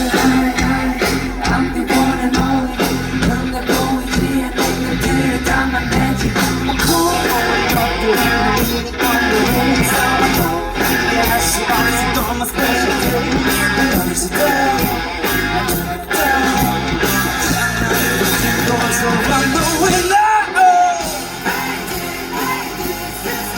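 Rock band music played loud with singing, guitar and a steady drum beat; the bass drops out briefly near the end.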